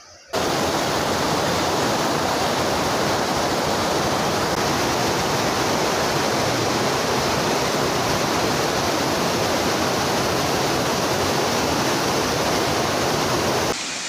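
Waterfall pouring into a pool, a steady, loud rush of water. It starts suddenly just after the start and cuts off abruptly just before the end.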